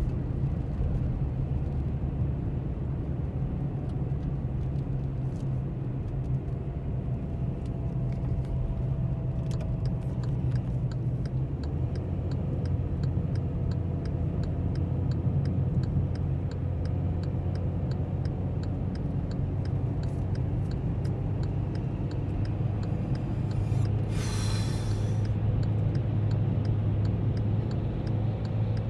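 Steady low rumble of a motor vehicle running, with a brief hissing rush about three-quarters of the way through.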